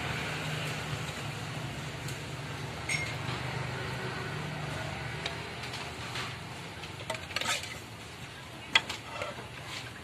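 Metal spoon clinking against an aluminium pot and seasoning jars as dry seasoning is spooned into the pot: a few sharp clinks, most of them in the second half, over a steady low background hum.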